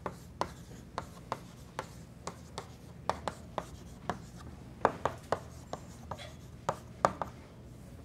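Chalk writing on a blackboard: a quick, irregular run of sharp chalk taps and short strokes, about three a second, over a faint low steady hum.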